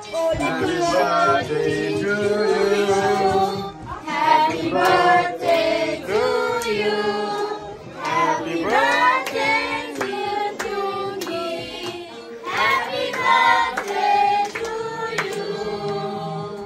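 Several voices singing together, with hands clapping along in time, in phrases of about four seconds each.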